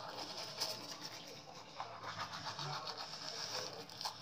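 Manual toothbrush scrubbing teeth: a soft, even scratching of bristles against the teeth.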